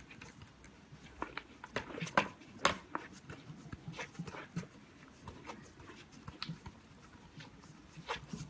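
Sharp metal clicks and knocks as a high-pressure hose fitting is handled and connected to a polyurethane injection pump, with the two loudest knocks about two and a half seconds in.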